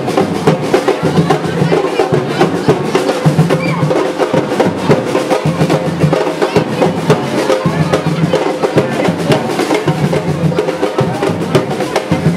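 Drums playing: a dense, fast rattle of drumming over a deep drum beat recurring about every second and a bit.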